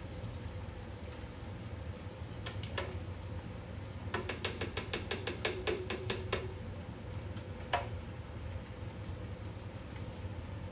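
A metal spoon scraping avocado flesh and tapping against a plastic blender jar: a few single knocks, then a quick run of about a dozen clicks in the middle, then one more knock, over a steady low hiss.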